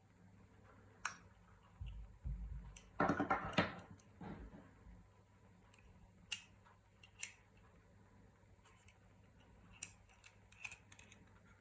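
Scattered small clicks and knocks from handling hard objects, with a short burst of rapid rattling clicks about three seconds in.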